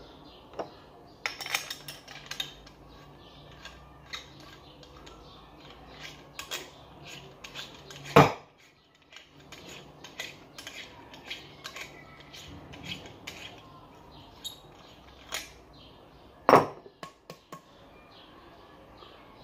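Metal clicks and clinks from a chrome sink tap being handled and twisted apart by hand, with two loud sharp knocks, about eight and sixteen seconds in.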